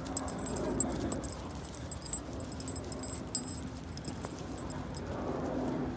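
Dog collar tags jingling as a dog walks on its leash, the small metallic jingles coming mostly in the first half, over soft rustling movement.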